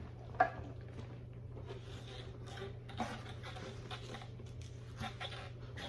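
Soft knocks and rustles of ukuleles being handled while one is set down and the next picked up, with a sharper knock about half a second in, over a steady low hum.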